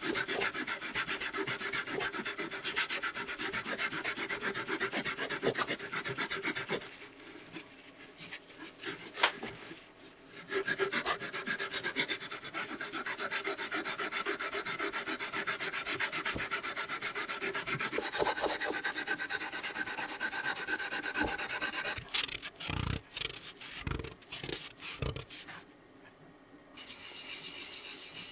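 Brisk back-and-forth hand rubbing on the wooden body of an antique Edward Preston wooden jack plane, a fast, scratchy scrubbing with a quieter stretch about a quarter of the way in and a short pause near the end. A few dull knocks sound just before that pause.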